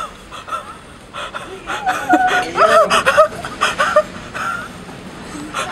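People laughing and gasping, with excited cries loudest about two to three seconds in, over a steady rushing background noise.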